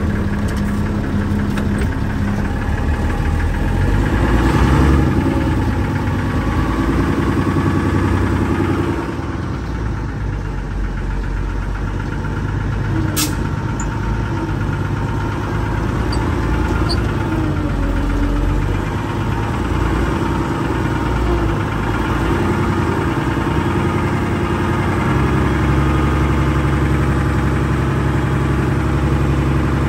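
Unimog 416's six-cylinder Mercedes diesel engine running while the truck is driven off, heard from inside the cab. Its pitch rises and falls several times as it is worked through the gears. There is a single sharp click about 13 seconds in.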